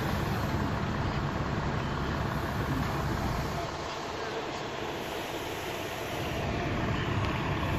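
Steady low rumble of vehicle engines and street traffic, easing off for a couple of seconds in the middle before building again.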